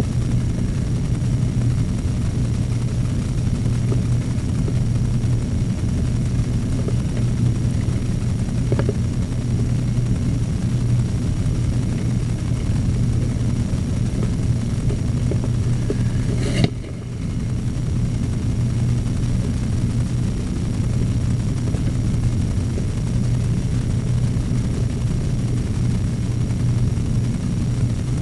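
A steady low drone, like a motor running, that briefly drops out about seventeen seconds in.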